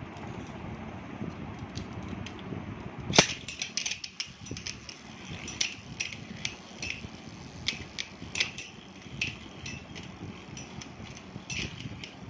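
Metal Beyblade spinning tops in a plastic dish: a steady spinning whir, one loud clack about three seconds in, then a run of sharp metallic clicks as two tops strike each other.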